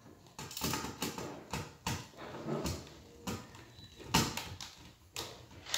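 Irregular clicks, taps and knocks of hands and tools handling smoke-detector wiring, about one or two a second, the loudest about four seconds in.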